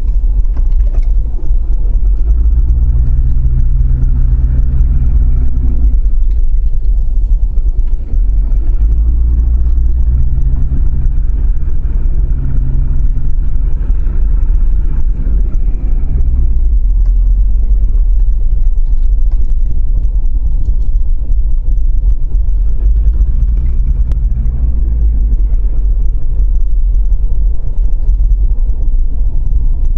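Vehicle running with a loud, continuous low rumble, and a humming drone that swells in and fades out three times.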